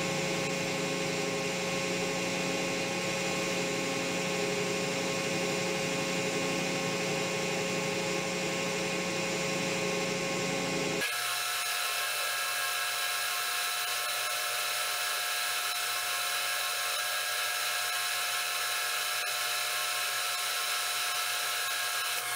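Metal lathe running steadily, turning a small tube stock with a cutting tool to size on the outside diameter; a steady motor hum with several fixed tones. About halfway through the sound changes abruptly to a thinner, higher-pitched running sound with less low hum.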